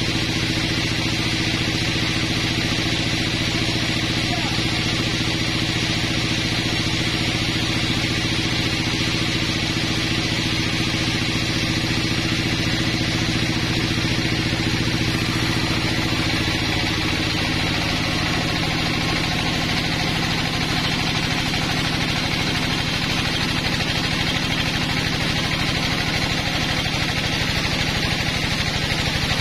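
Band sawmill running steadily, its blade cutting lengthwise through a pine log: a loud, even mechanical drone with a hiss from the cut. About halfway through, the pitch of the drone shifts slightly.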